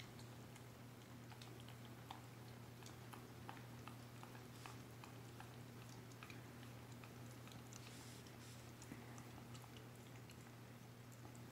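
Faint wet licking and lip-smacking of a rough collie licking food off a person's hand: many small irregular clicks over a steady low hum.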